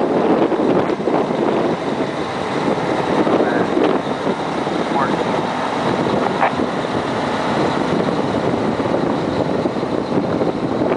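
Diesel engine of a Case four-tracked tractor running steadily, with wind noise on the microphone.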